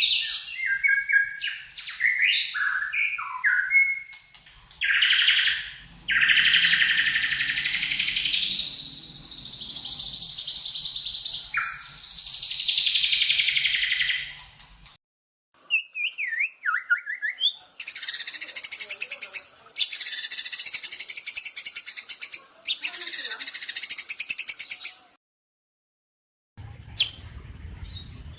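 Songbird song of the kind played as masteran training song for caged songbirds: a run of varied chirps, then long buzzy trills and rapid trilled phrases, broken by abrupt cuts and short silences.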